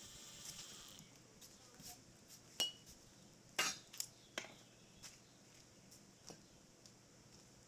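Irregular sharp clinks and knocks of metal being handled. One strike about two and a half seconds in rings briefly, and a cluster follows a second later. A steady high hiss stops about a second in.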